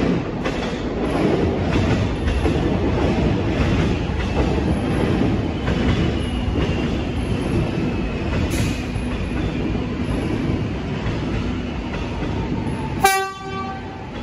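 Metro X'Trapolis electric train pulling slowly along the platform: a steady rumble of wheels on rail and a faint whine from the traction motors falling in pitch as it brakes. About thirteen seconds in there is one short, sharp horn toot.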